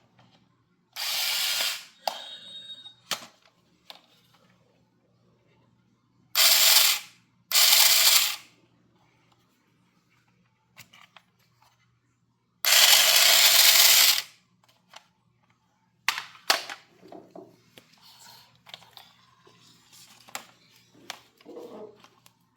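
Toy knife with smoke, light and sound effects going off in four loud hissing bursts of about a second each, with clicks and handling noise between them.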